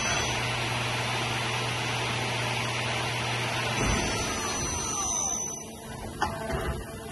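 Doosan Puma 2500 XLY CNC lathe running: a steady machine whir with a low hum that stops about four seconds in, drive motors whining up and down in pitch as the tool turret moves, and a sharp click a little after six seconds.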